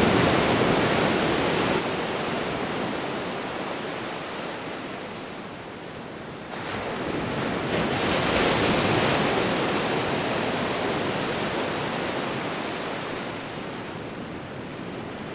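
Rushing floodwater: a steady rush that swells, dips about six seconds in, then swells again and slowly eases.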